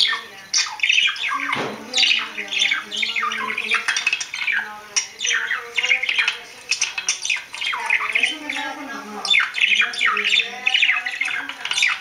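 Budgerigar warbling and chattering without pause, a rapid run of short, quickly changing chirps and squawky notes.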